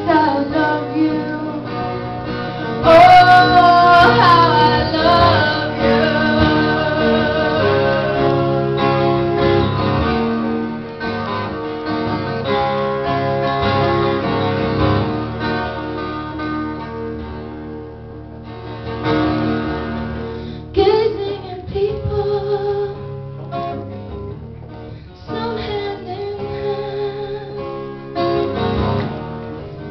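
Live acoustic song: a twelve-string acoustic guitar strummed with a woman singing over it, holding a long wavering note a few seconds in.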